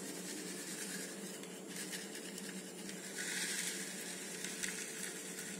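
Flour being sifted through a plastic mesh sieve: a faint, scratchy rustle as the sieve is shaken, louder for a stretch about three seconds in.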